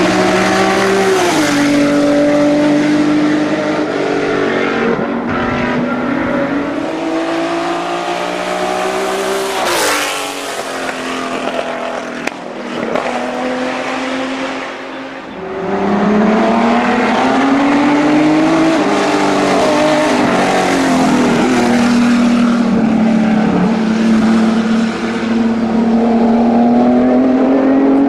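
Opel Commodore B race car's straight-six engine at full throttle on a hillclimb, climbing in pitch and dropping back at each gear change. Partway through it passes close by, fades, and then is heard accelerating hard again.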